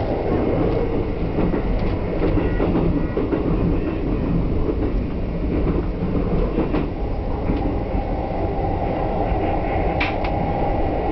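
Electric commuter train running, heard from inside the front car: a steady rumble of wheels on rail, with irregular clicks as the wheels pass over rail joints and points. A steady hum joins the rumble about seven seconds in.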